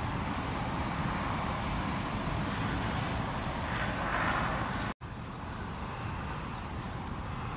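Steady outdoor background noise, a low rumble with hiss, swelling briefly about four seconds in and dropping out for an instant about five seconds in.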